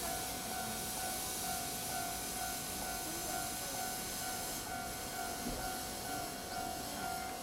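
Kintetsu 50000 series 'Shimakaze' express train standing at the platform, its onboard equipment running: a steady hiss with a constant high-pitched whine.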